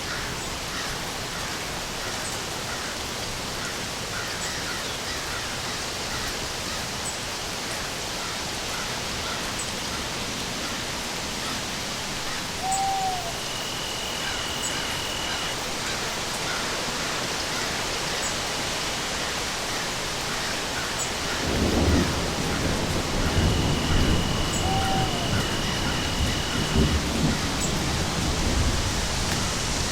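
Steady rain falling, joined about two-thirds of the way through by a low rolling rumble of thunder that swells in waves. A few single owl hoots sound over the rain.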